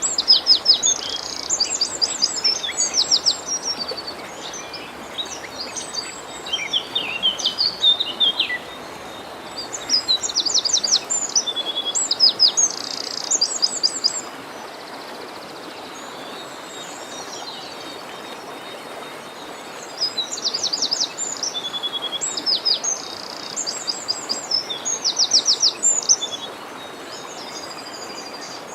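Songbirds singing in bouts of quick trills and chirps over the steady rush of a forest stream; the birds fall quiet for several seconds midway, leaving only the water, then start again.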